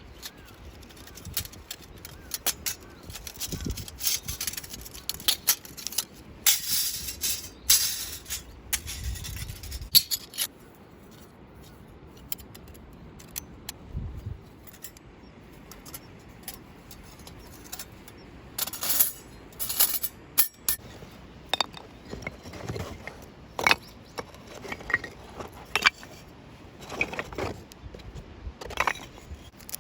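Camping gear being handled and set out: bag rustling with irregular light clinks and knocks of metal, a longer rustle about a third of the way in.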